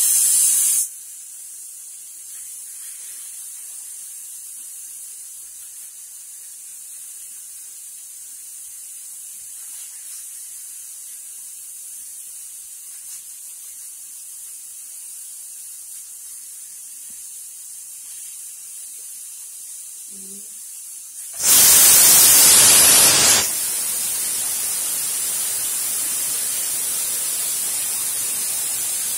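Pressure cooker on a gas burner hissing steadily as it comes up to pressure. A little over 21 seconds in, its weight lifts and lets out a loud whistle of steam for about two seconds, the single whistle that tells the cook it is done. Steam then keeps hissing more loudly from the vent.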